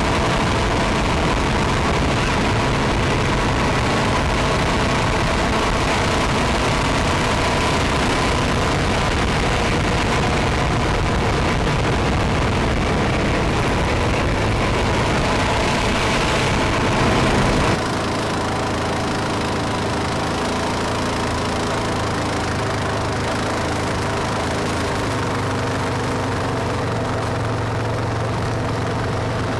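ATV (quad) engine running steadily while riding a dirt road, heard from the quad carrying the camera, with wind and road noise. About two-thirds of the way through the sound changes abruptly, becoming a little quieter with a steadier low hum.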